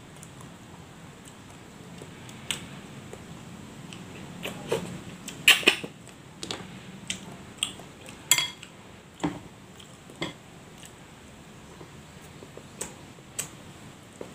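Eating with the hands at a table: scattered clicks and taps of fingers picking at small crabs and food on ceramic plates, loudest in a cluster about five and a half seconds in.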